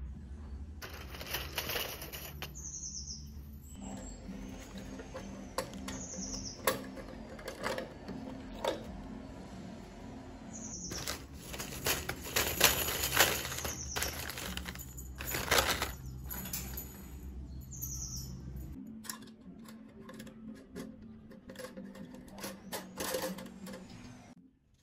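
Metal double-loop wire binding combs being handled, making light clicks and rattles over a low steady hum that stops about three-quarters of the way through. A few short bird chirps are heard in between.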